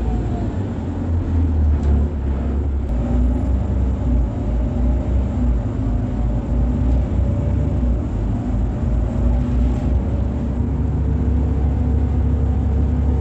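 Irisbus Citelis 18 articulated bus heard from on board, its IVECO Cursor 8 six-cylinder diesel engine running with a deep, pulsing rumble. Faint tones from the engine and drivetrain slide gently in pitch above it.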